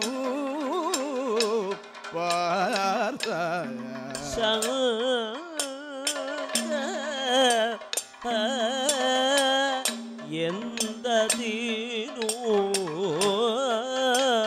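Kathakali accompaniment music: a singer's melismatic, heavily ornamented vocal line over a steady drone, with sharp percussion strikes keeping time throughout.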